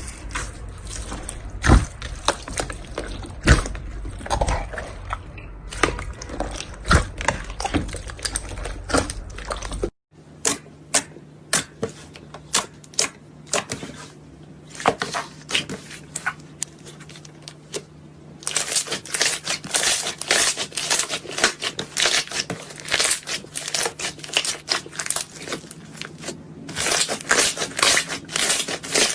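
Slime being squeezed and pressed by hand: a dense run of small crackles, pops and squishes. It breaks off abruptly about a third of the way in and resumes with a lighter, clickier crackle. The crackle grows louder and denser past the halfway point.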